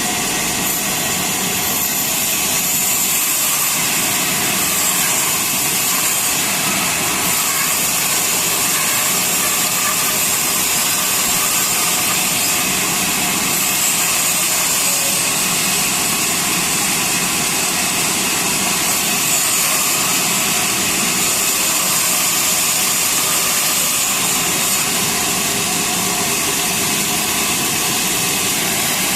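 Sawmill saw running steadily through a hardwood log: a constant loud machine noise with high whining tones over a hiss, never changing.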